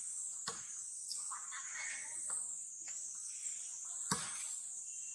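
Steady high-pitched chorus of insects, with a few sharp clicks or taps, the loudest about four seconds in.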